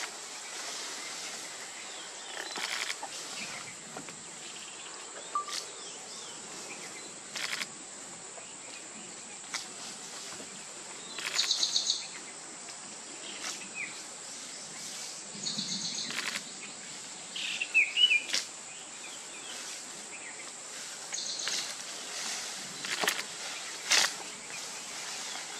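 Outdoor grassland ambience: scattered bird calls, short chirps and a couple of rising whistles, over a steady high hiss, with occasional short rustles and snaps.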